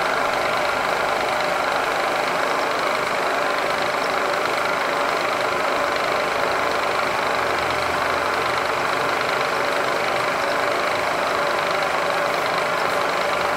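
Milling machine running steadily, its 3/8-inch two-flute end mill spinning and feeding across a metal part on a light skim pass that scratches a witness mark to set the Z zero.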